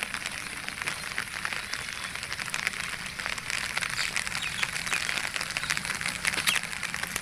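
Floodwater of a river in spate rushing and splashing: a steady hiss with many small crackles.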